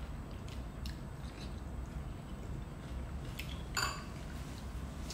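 Mealtime sounds: a metal spoon clinking and scraping in a ceramic curry bowl with small wet mouth noises from eating, as a few short separate ticks, the loudest just before four seconds in. A low steady room hum sits underneath.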